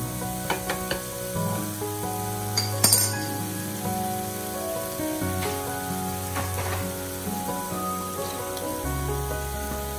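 Thin-sliced beef sizzling on the hot grill plate of an Iwatani smokeless tabletop gas grill, under background music with held notes that change every second or so. A few light clicks come in the first second, and a sharp clink about three seconds in.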